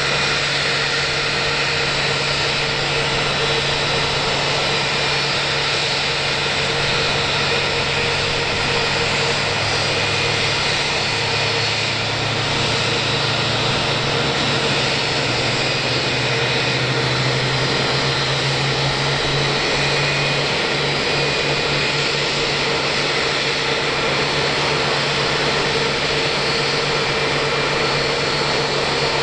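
Airbus A321-200 jet airliner whining steadily at the stand, turbine noise with steady high tones. A low hum grows and climbs in pitch between about ten and twenty seconds in, then wavers.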